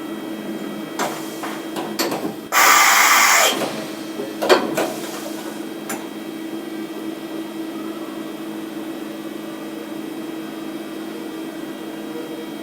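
CNC milling machine running with a steady hum. A few sharp knocks and clicks come over it, and about two and a half seconds in there is a loud hiss lasting about a second.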